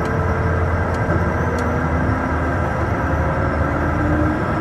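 Steady low rumble and hum of a Challenger 350 business jet rolling along the runway after landing, with a couple of faint ticks.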